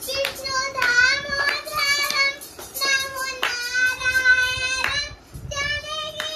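A child singing a Ganesh bhajan in a high voice, holding long notes, with a few hand claps.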